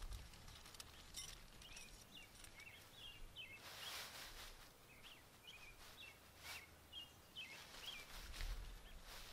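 Quiet outdoor ambience with a small bird chirping in quick, short notes, and two brief rustles partway through.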